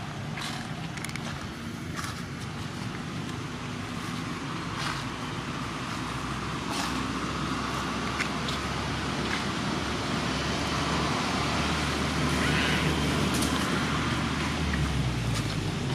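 A motor vehicle's engine rumble that grows steadily louder over several seconds, with scattered faint clicks.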